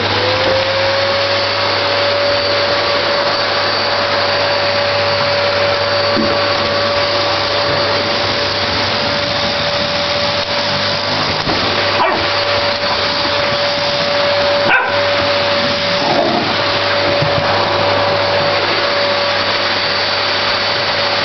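Vacuum cleaner running steadily, its motor whine rising in pitch and settling just after the start. Over it a golden retriever puppy whimpers and yips now and then as it plays at the vacuum, with a couple of short knocks.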